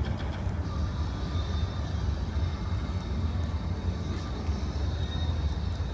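Steady low rumble with an even hiss above it: the background noise of a large auditorium between the presenter's sentences.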